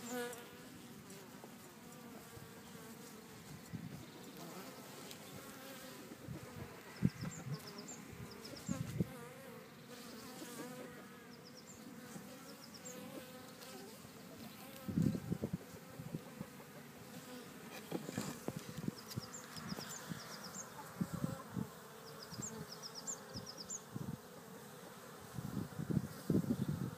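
Honeybees buzzing around a beehive, a steady wavering drone, with several short low thuds now and then and a few faint high chirps.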